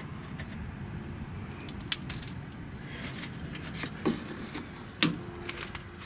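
Steel hand tools clinking against the rear shock absorber's upper mount: needle-nose vise grips and metal knocking and scraping in a handful of sharp metallic clicks, one with a brief ring about two seconds in.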